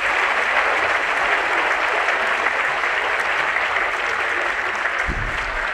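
Large audience applauding, a dense even clatter of many hands that eases off slightly near the end. A short low thump sounds about five seconds in.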